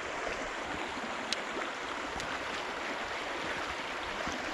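Steady rush of flowing stream water, with one small sharp click a little over a second in.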